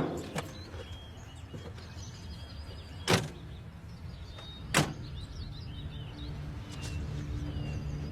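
Two car doors slamming shut about a second and a half apart, over a low steady rumble with faint bird chirps.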